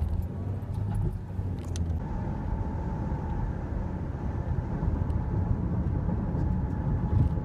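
Road noise inside a moving car on the highway: a steady low rumble of tyres and engine. A faint steady whine joins about two seconds in.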